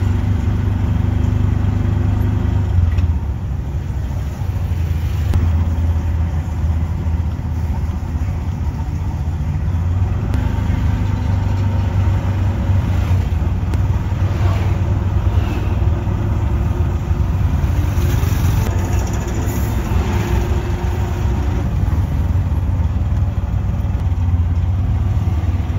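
Engine of the vehicle being ridden in, running with a steady low hum as it creeps through slow city traffic, with the noise of surrounding cars and motorbikes.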